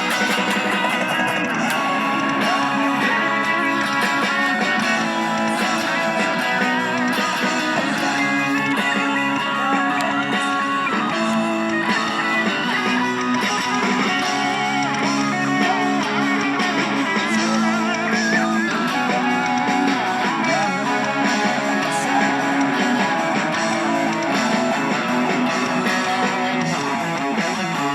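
A band playing a guitar-led song, with strummed guitars throughout.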